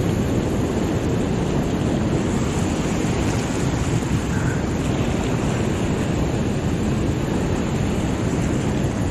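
Steady rush of fast, churning water pouring through a spillway.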